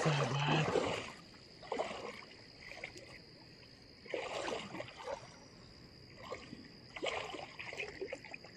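Shallow river water sloshing and splashing in irregular bursts as people wade through it, with water dripping back into the river. A faint steady high tone runs underneath.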